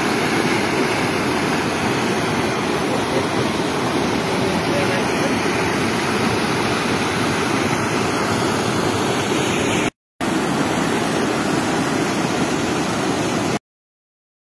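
Swollen river floodwater pouring over a concrete weir: a loud, steady rush of churning white water. It cuts out for a moment about ten seconds in, comes back, and stops abruptly near the end.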